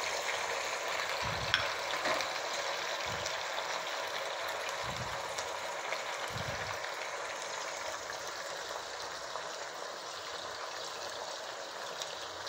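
Steady sizzling from a steel pot of chopped tomatoes cooking in hot oil on the stove, slowly fading.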